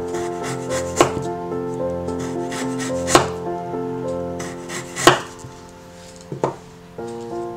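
Chef's knife chopping on a wooden cutting board, mincing garlic and ginger: four sharp knocks about two seconds apart, over soft piano music.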